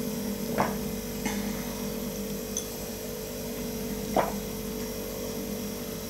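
A few short, quiet sips of whisked matcha from a ceramic tea bowl, the first just under a second in and the last around four seconds, over a steady electrical hum.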